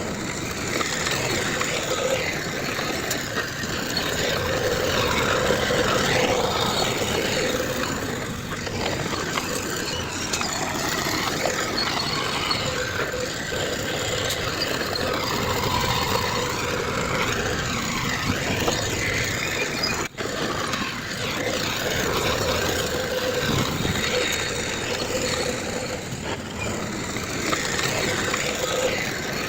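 Heavy earthmoving machinery running: the diesel engines of a bulldozer and dump trucks working, steady with some rise and fall. A brief dropout about two-thirds of the way through.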